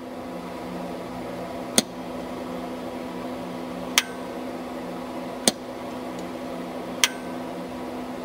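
Transmit/receive relay inside a Realistic TRC-480 CB radio clicking each time the radio is keyed and unkeyed: four sharp clicks about one and a half to two seconds apart. This is the normal mechanical switching of the relay, not a fault. A steady low hum runs underneath.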